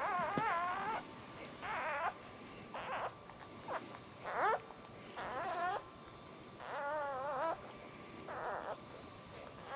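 Newborn dachshund puppy, just born, crying in a run of about eight high squeals, each under a second long, some held and warbling up and down.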